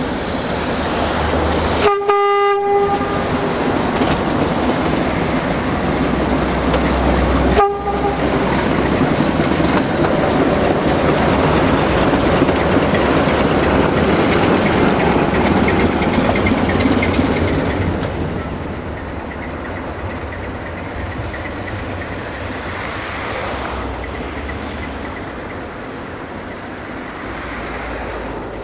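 CFR 060-DA (LDE2100) diesel-electric locomotive running light at close range, its Sulzer diesel engine working, and it sounds its single-tone horn twice: a blast of under a second about two seconds in and a short toot about eight seconds in. The engine noise drops off after about eighteen seconds as the locomotive moves away.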